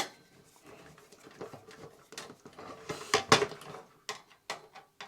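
Clicks, knocks and rattles of small screws, tools and the stereo's plastic and metal parts being handled during disassembly, with a louder clatter about three seconds in.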